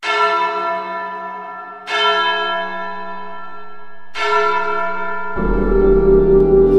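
A church bell struck three times, about two seconds apart, each stroke ringing on and slowly fading. About five seconds in, a loud, sustained low chord of music comes in.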